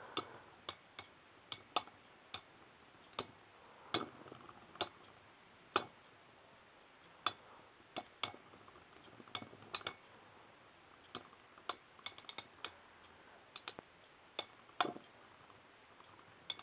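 Beyblade spinning tops in a plastic stadium, making sharp, irregular clicks as they knock against each other and the stadium, with Thermal Pisces wobbling as it loses spin.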